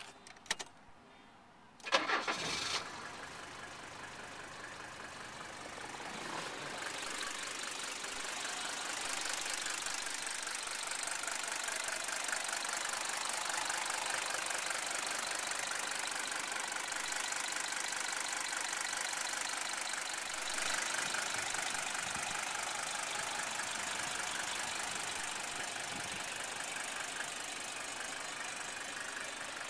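1978 Mercedes-Benz 300D's five-cylinder diesel engine starting after a few clicks, catching about two seconds in, then idling steadily. The idle grows louder a few seconds after it starts and holds there.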